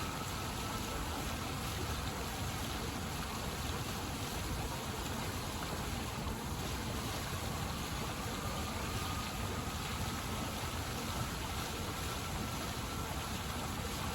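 Steady rushing noise with no distinct events, and a faint high tone held through it.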